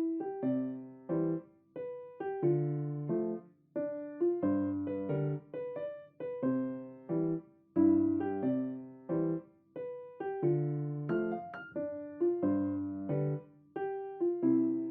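Background piano music: a gentle melody of struck notes that ring and fade over soft chords.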